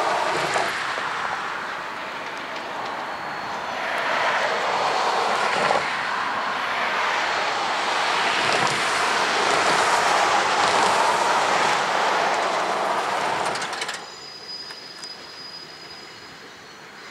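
Road traffic passing close by, a pickup truck and then a car, heard as swelling waves of tyre and engine noise. The sound drops abruptly about 14 seconds in to a much quieter background with a few faint ticks.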